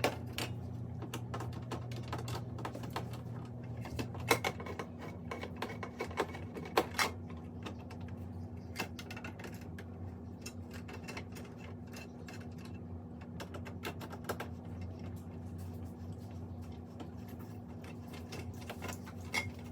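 Scattered light clicks and taps of hand tools and small hardware being handled, irregular and a few seconds apart, over a steady low hum; part of the hum drops away about four seconds in.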